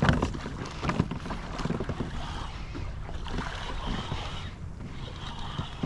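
Wind buffeting the microphone over water lapping and splashing against a kayak's hull as it moves across choppy water, with a few light knocks.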